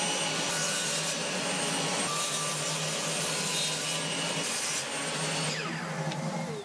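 Table saw running and cutting a 9-degree bevel along the edge of a thin teak board. Near the end the saw is switched off, and its motor winds down in a falling whine.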